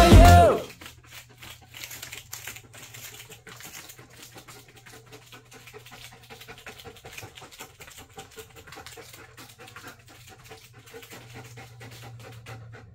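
German Shepherd's claws clicking quickly and irregularly on plastic floor tiles as the dog moves about, with the dog panting.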